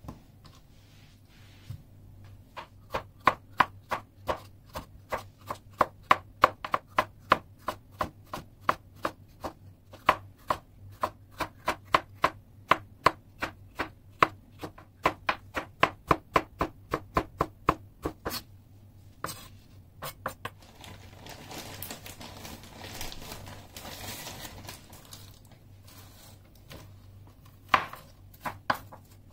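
Chef's knife slicing tomatoes on a wooden cutting board, the blade knocking the board in a steady rhythm of about three strokes a second for some fifteen seconds. After that come a few seconds of softer scraping noise and then a few more knife knocks near the end.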